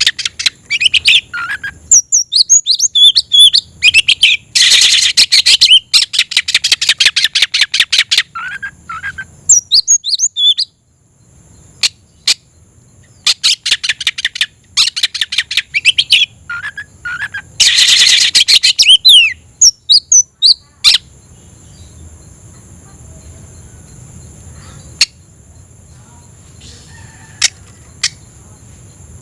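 Oriental magpie-robin (kacer) in full song: loud whistled phrases broken by fast rattling trills, given as a challenge to a rival male. The song comes in bursts for about the first twenty seconds, then drops to a few faint notes.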